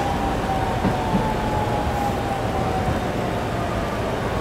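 Running sound of a JR 209 series 3100 subseries train from inside the car: the GTO-VVVF inverter and MT68 traction motors give a thin whine that slowly falls in pitch, over steady wheel and track rumble.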